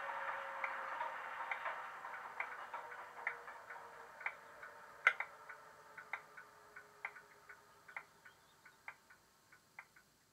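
Sound-equipped Hornby Class 31 model playing its diesel engine sound through a small bass-enhanced speaker as the engine runs down and fades away, with a slowly falling whine. Irregular sharp ticks sound a few times a second over it, the loudest about five seconds in, and thin out as the engine sound dies.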